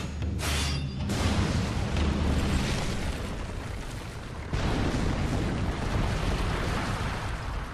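Explosion and crash sound effects: a long rumbling blast, with a fresh loud blast about four and a half seconds in.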